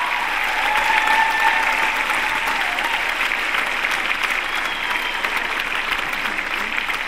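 Audience applauding with dense, steady clapping that slowly tapers off.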